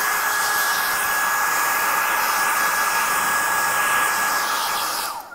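Handheld hair dryer running: a steady rush of air with a constant motor whine, switched off about five seconds in, the whine falling as it winds down.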